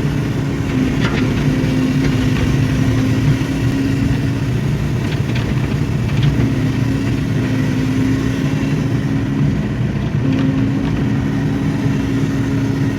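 Hydraulic excavator's diesel engine running steadily, with a steady whine that drops out twice and comes back. A few light knocks sound through it.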